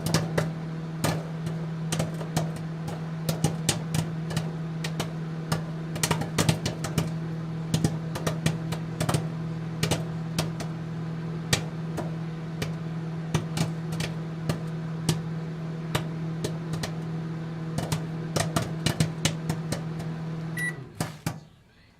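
Microwave oven running with a steady hum and many irregular sharp pops and clicks. It stops suddenly just before the end with a short beep.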